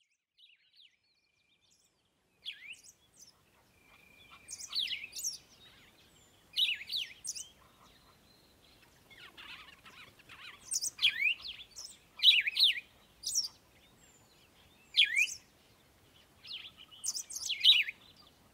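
Songbirds singing: short, bright chirping phrases with quick sliding notes, repeated every second or two, starting about two seconds in.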